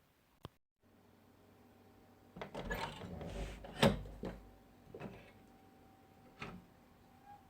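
A door being worked: a stretch of rattling from the latch and handle, then a loud clunk about four seconds in, followed by a few lighter knocks.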